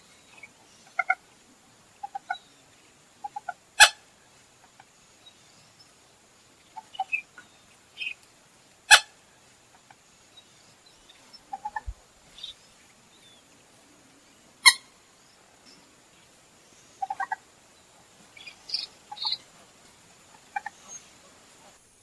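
Common gallinule (American moorhen) calling: short clucking notes, often in quick pairs and threes, scattered through. Three loud, sharp clicks stand out about five to six seconds apart.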